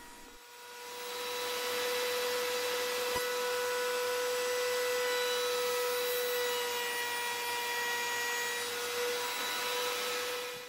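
Table-mounted router running at speed with a steady high whine, its bearing-guided flush-trim bit trimming the edge of a pine board along a 3D-printed radius template. The sound swells over the first two seconds, holds steady and cuts off suddenly at the end.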